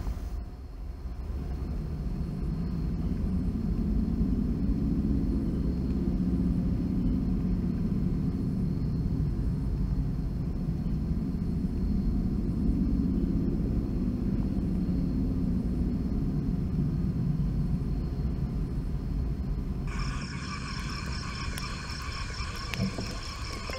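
A low, wavering rumble for most of the time. About twenty seconds in it gives way to a night chorus of frogs and insects, rapid pulsing calls over a quieter rumble.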